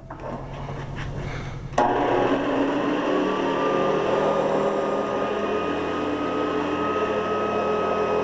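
Hoover Guardsman upright vacuum cleaner being switched on: a low hum builds for about two seconds, then it jumps suddenly to full, loud running, its motor whine rising a little as it comes up to speed and then holding steady.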